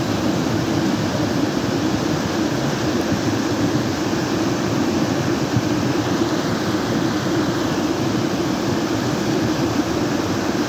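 Muddy flash-flood torrent carrying mud and debris, rushing past as a steady, dense low rumble of churning water.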